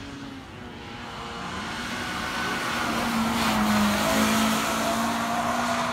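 Hill-climb race car engine under hard acceleration as the car comes through a bend and passes. The engine note grows louder to a peak about four seconds in, then eases a little as the car pulls away.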